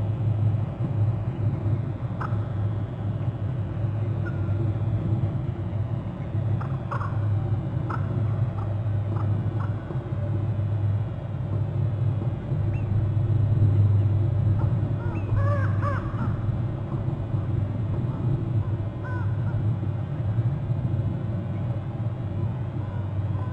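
Ravens giving short harsh calls at irregular intervals, with a cluster of several calls about two-thirds of the way through, over a steady low hum.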